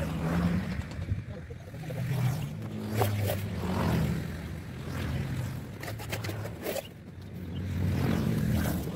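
A motor hums low and steadily, swelling and easing, with a few sharp knocks and scrapes of rubble stone and mortar buckets being handled.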